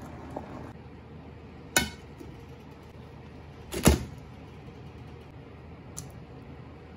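Kitchen handling sounds over a steady background hiss: a sharp knock about two seconds in, then a louder thunk near four seconds as a plastic-wrapped block of plant-based ground beef is set down in a white nonstick frying pan, and a light tap near six seconds.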